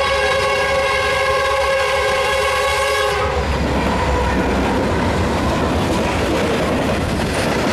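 Lead diesel locomotive's air horn, a held multi-note chord that cuts off sharply about three seconds in, then the noise of the locomotives and freight cars passing close by, with steel wheels running on the rails.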